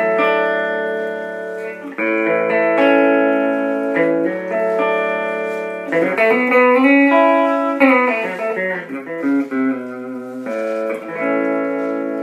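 Clean electric guitar from an Alvarez Dana II's Triforce pickup, middle single coil alone, played through a 1981 Peavey Backstage amp with a 10-inch speaker. Chords are held and let ring about two seconds each, with quicker notes and pitch bends in the middle.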